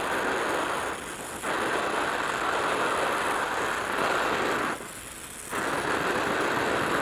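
Oxy-acetylene welding torch flame hissing steadily on the weld puddle. The hiss drops away briefly twice, about a second in and again around five seconds.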